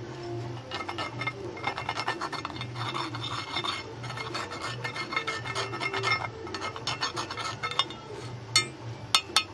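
Metal hand tool scraping packed casting sand off a freshly cast aluminum part: a quick run of rasping strokes, then a few sharp clicks near the end as the tool strikes the casting.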